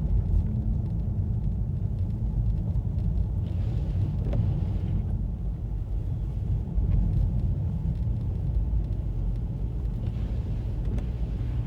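Steady low rumble of a car's engine running, with wind and vehicle noise and no distinct events.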